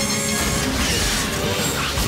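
Dramatic cartoon action soundtrack: background music mixed with sci-fi sound effects of an energy-weapon blast and crashing impacts.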